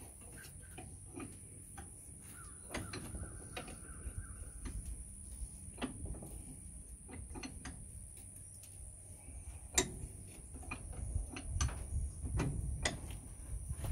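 Irregular metallic clinks and knocks from a steel rod and a blacksmith's leg vise as the vise handle is worked and the rod shifts in the jaws, with a few louder knocks near the end.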